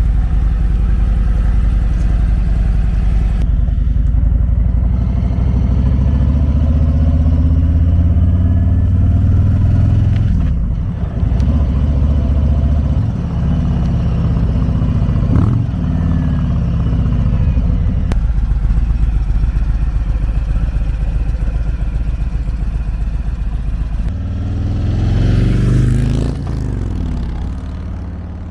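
Harley-Davidson V-twin motorcycle engine running at idle, its engine speed shifting a few times, with rising and falling pitch sweeps near the end.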